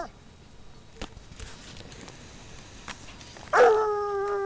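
Ariégeois scent hound giving one long, steady bay near the end, a single held note, as it works a hare's trail. Before it, a couple of faint ticks.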